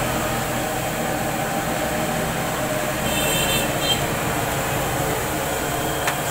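Hot oil sizzling and bubbling steadily in a large wok of deep-frying battered plantains. A brief high squeak comes about three seconds in, and a light click near the end.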